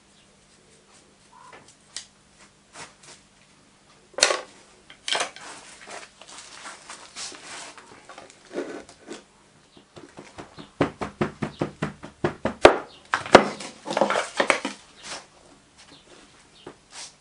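Greensand being scooped from a pile and tipped into a wooden moulding box over an aluminium pattern: the scoop scraping through the sand and sand spilling onto the pattern and board, with a quick run of small taps about two-thirds through.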